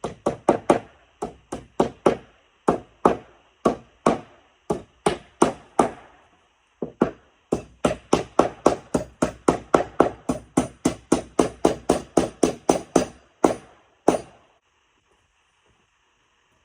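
Hammer striking nails in the weathered planks of an old wooden barn door, a long run of sharp blows at about two to four a second with a few short breaks, stopping near the end.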